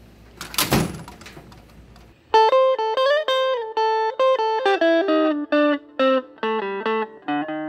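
Outro music starting about two seconds in: an electric guitar playing a run of single notes. Before it comes a brief noise.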